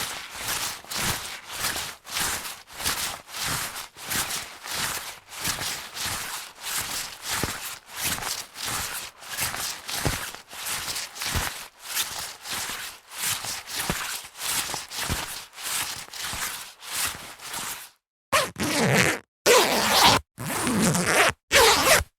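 Jacket being handled in quick, regular rasping strokes, about two or three a second. About 18 seconds in there is a short break, then a few louder, longer rasps.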